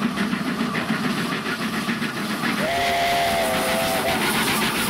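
Two NZR Ja class 4-8-2 steam locomotives double-heading a train under power, their exhausts chuffing rapidly over a steady hiss of steam. About two and a half seconds in, a steam whistle sounds one long chord-like blast of about a second and a half.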